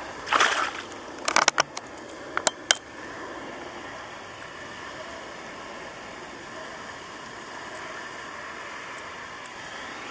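Peacock bass thrashing in shallow water at the bank: a splash about half a second in, then a quick run of sharp slaps between about one and three seconds, after which only steady background noise remains.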